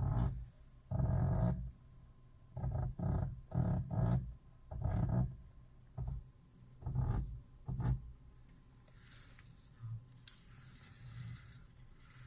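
Fiat Grande Punto steering making a deep noise in short bursts as the wheel is turned to the right, about ten of them at irregular intervals over the first eight seconds, followed by a fainter hissing rustle.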